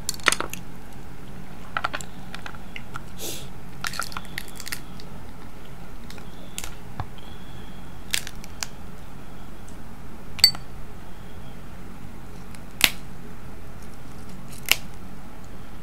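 Snow crab leg shells being cracked and snapped by hand: scattered sharp cracks and clicks a second or more apart, the loudest two about ten and thirteen seconds in, over a steady low hum.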